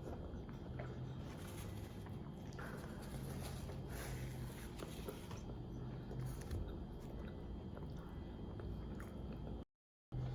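Close-up chewing and biting of food, with small crunches and mouth clicks over a steady low hum. The sound cuts out completely for a moment near the end.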